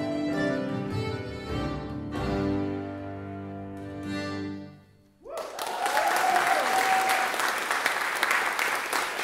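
Accordion, cello and piano playing the last bars of a folk tune, ending on a held final chord that dies away about five seconds in. The audience then breaks into applause.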